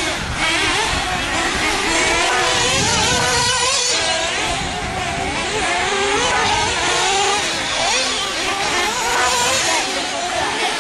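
Several 1/8-scale nitro RC truggies racing together, their small two-stroke glow engines whining and rising and falling in pitch as they accelerate and back off around the track.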